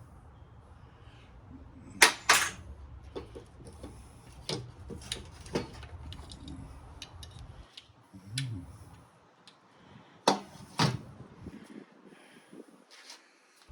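Scattered clinks and knocks of metal parts and tools being handled while an electric motor is taken apart by hand, with two pairs of louder knocks about two seconds and ten seconds in. A low steady hum underneath stops about eight seconds in.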